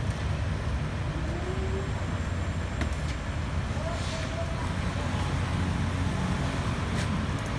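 Steady low engine hum with faint voices in the background, and a couple of light clicks.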